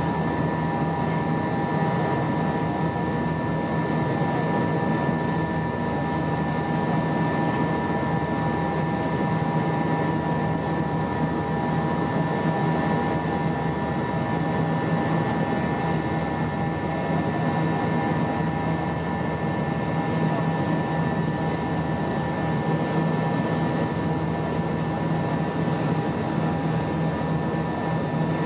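Airbus A320 cabin noise in flight: the steady drone of its IAE V2500 turbofan engines and rushing air, with several steady hum tones and no change.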